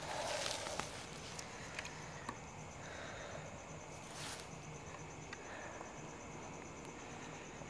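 Rustling in dry grass at the start, with a few small clicks and another brief rustle about four seconds in, over a faint, steady, high insect trill.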